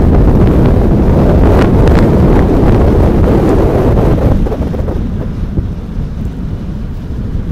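Wind buffeting the microphone: a loud, gusty rumble that eases a little after halfway through.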